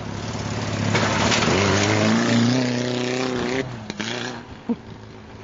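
Toyota Corolla KE55's four-cylinder engine revving hard as the car is driven, its note rising and then holding high. The engine sound cuts off suddenly a little over halfway through.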